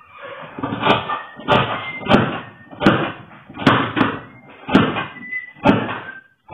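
Large dressmaker's shears cutting woven fabric along a paper pattern: a series of about eight snips, roughly one every three-quarters of a second, each blade closure starting with a sharp click.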